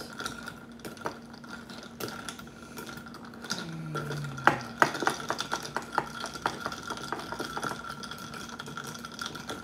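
A long-handled spoon stirring iced tea in a glass, clinking against the ice cubes and the glass, the clinks coming thick and fast in the second half. A faint steady hum runs underneath.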